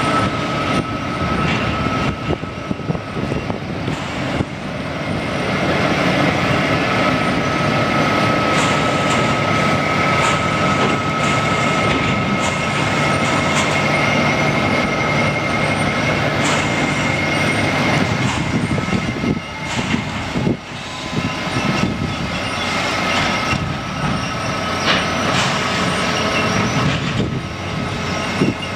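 Heavy truck running under load, a dense low engine sound with a steady high-pitched whine over it and scattered knocks and clunks.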